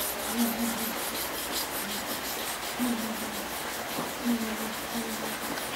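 Hand rubbing on a motorcycle engine in quick, even strokes, about four a second, polishing the metal to a shine.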